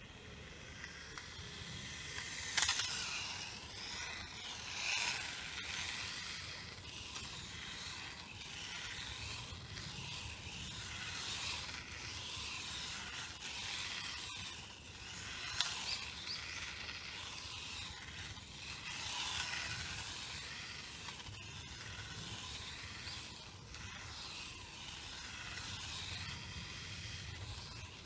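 WLtoys K989 mini RC car running on rough asphalt: its small electric motor and gears whine, rising and falling in pitch as it speeds up and slows, over a steady hiss of tyres on the road. Two sharp ticks, about three seconds in and again near the middle.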